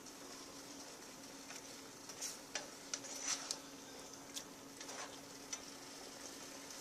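Red curry coconut chicken cooking quietly in a frying pan: a soft sizzle with scattered small pops and clicks, mostly in the middle few seconds, over a faint steady hum.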